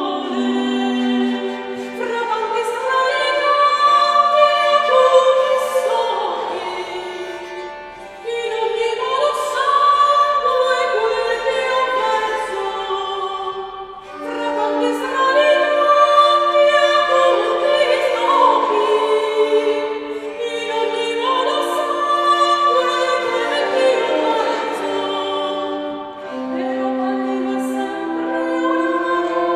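Early-music ensemble playing: a woman's voice sings over a portative organ and a bowed viola d'arco. The music moves in long held chords, with short breaths between phrases about 8, 14 and 26 seconds in.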